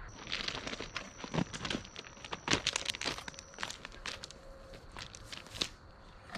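Irregular crunching and crinkling of footsteps and shuffling on a gravel bank, with a thin steady high whine through the first half.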